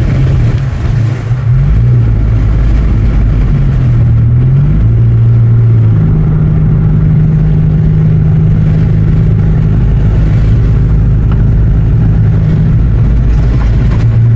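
Chevy Malibu driving, heard from inside the car: a loud, steady engine and road rumble. The engine note dips and rises a few times in the first half and then holds steadier and a little higher.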